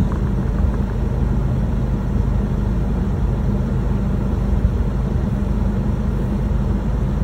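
An engine running steadily at idle: an even low hum with no change in speed.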